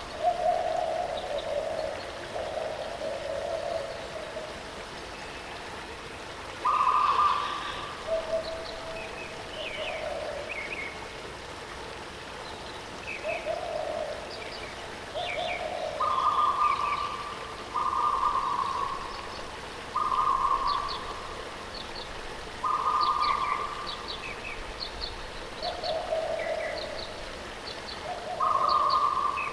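Birds calling over the steady rush of a waterfall. One bird repeats hoot-like notes about a second long at two pitches, a lower note and a higher one, while other birds add quick high chirps.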